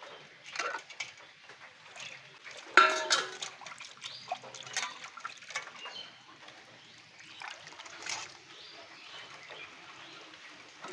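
Water splashing and sloshing in irregular bursts as small fish are washed by hand in a bowl of water, the loudest splash about three seconds in.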